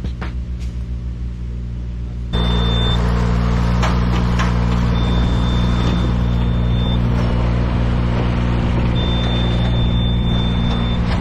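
An engine running steadily, getting louder about two seconds in, with a thin high whine that comes and goes.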